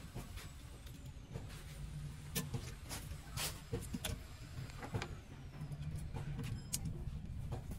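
Workshop sounds: scattered sharp metal clicks and knocks from tools and parts over a steady low engine hum.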